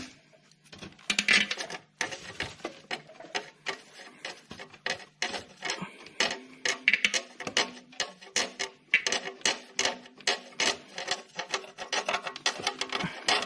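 Quarter-inch socket ratchet clicking in quick runs of short ticks as it is swung back and forth, undoing a starter motor mounting bolt.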